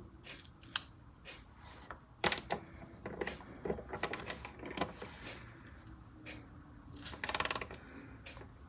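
Saker ratchet T-handle screwdriver working screws: scattered clicks and small knocks, then a quick, rapid run of ratchet clicks about seven seconds in.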